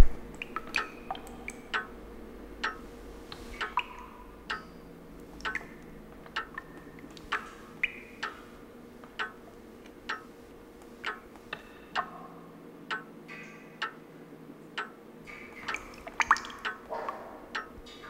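Water dripping in an irregular patter, each drop a short plink at a slightly different pitch, over a faint steady hum.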